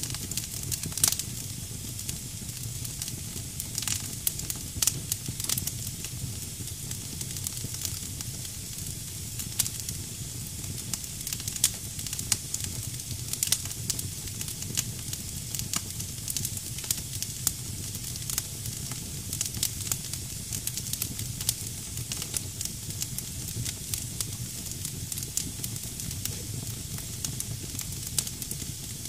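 Wood fire burning in a fireplace: damp logs give off a steady hiss, with frequent sharp crackles and pops over a low steady rumble.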